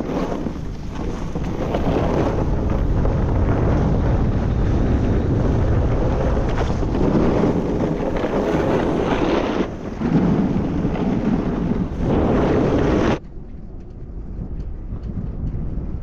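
Snowboard sliding and carving over snow, with wind rushing over the microphone at riding speed and swelling through the turns. It cuts off suddenly near the end, leaving a quieter steady wind.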